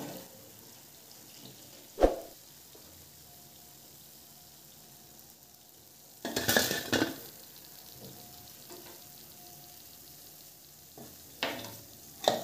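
Oil sizzling gently in a frying pan on a low flame as fried shakkar pare are scooped out with a metal slotted spoon. There is a sharp knock of the spoon about two seconds in, and louder spells of scooping and sizzling about six seconds in and near the end.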